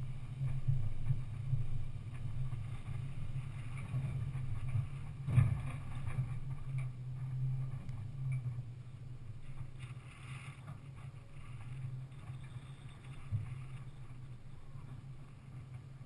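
Off-road vehicle engine running with a steady low hum as the vehicle crawls slowly over a rocky dirt trail. There is a sharp knock about five seconds in, and a brief hiss near the middle.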